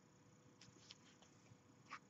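Near silence, with a few faint small clicks and ticks from a metal crochet hook working through yarn stitches; the clearest one comes near the end.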